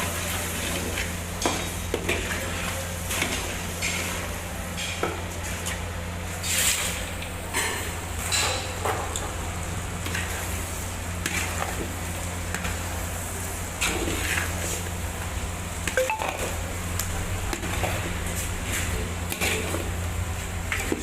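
Cooking clatter: metal utensils knocking and clinking against pans at irregular moments over a steady low hum, with a faint sizzle of frying.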